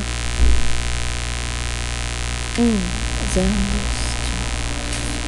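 Steady electrical mains hum with static hiss on a computer microphone. There is a low thump about half a second in and a brief muttered voice near the middle.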